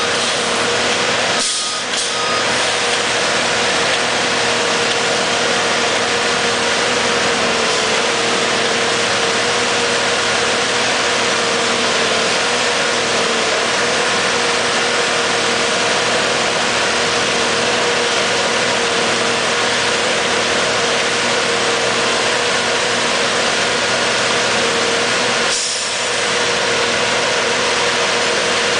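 Railroad tie-replacement machine running steadily, its engine giving a constant heavy hum with a high steady tone that wavers slightly in pitch. The sound dips briefly twice, shortly after the start and near the end.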